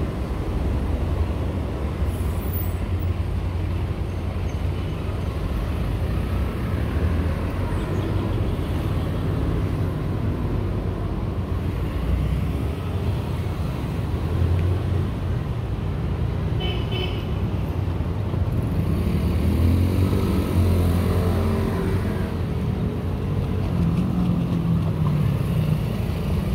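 Steady road traffic rumble from passing vehicles, with one vehicle's engine growing louder around twenty seconds in.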